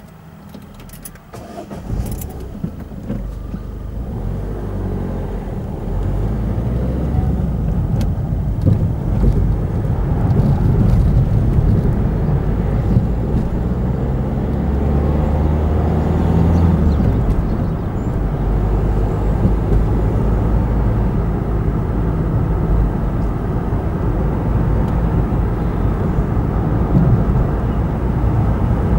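Car setting off from a standstill and driving on, heard from inside the car: a few clicks as it moves off, then engine and road noise building over the first several seconds into a steady low rumble.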